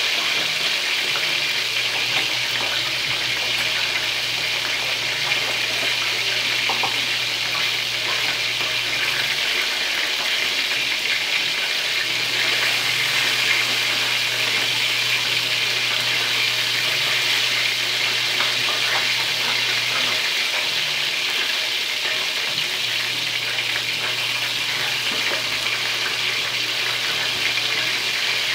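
Chicken drumsticks sizzling steadily as they fry in a shallow pan over a gas burner, with a few faint crackles of spitting fat.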